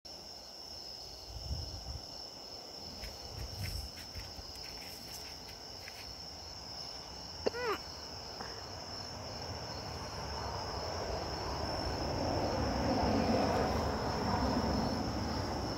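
Crickets chirping steadily in a high, even drone. A short pitched call is heard about halfway through, and a low noise swells in the second half.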